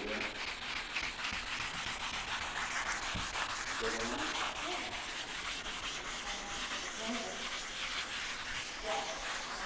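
Hand wet-sanding of fresh clear coat with ultra-high-grit sandpaper on a pad: a continuous wet rasping rub as the paper is worked side to side, sanding the orange-peel high spots off the clear coat.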